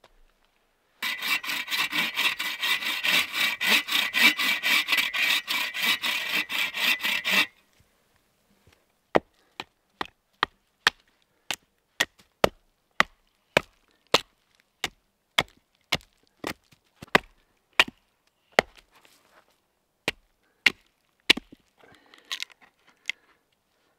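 A hand saw cutting through a green hardwood log in quick, steady strokes for about six seconds. Then sharp wooden knocks, about two a second, as a wooden baton drives a knife into the top of an upright wooden stake.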